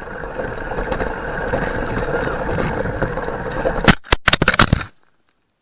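Onboard-camera audio from a GPToys Luctan S912 electric RC truck running over a rough dirt trail: a steady rumble of wheels and motor. About four seconds in, a burst of hard knocks and scrapes lasts about a second, then the sound cuts off.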